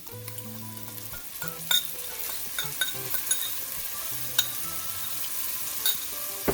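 Chopped tomatoes sizzling in hot oil with onion and garlic in a pot, the hiss swelling about a second in, with a utensil clicking against the pot several times and a sharp knock at the end. Background music runs underneath.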